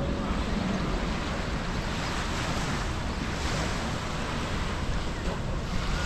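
Ocean waves washing onto a sand beach, the surf rising in swells a few seconds apart, with wind rumbling on the microphone.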